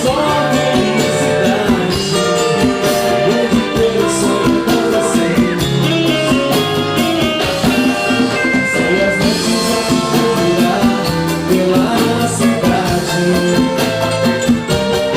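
Live dance band playing, with electric guitar and drum kit keeping a steady beat.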